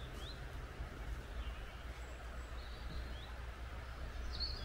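Quiet woodland ambience: a few short, faint bird chirps, with more calls starting near the end, over a low steady rumble.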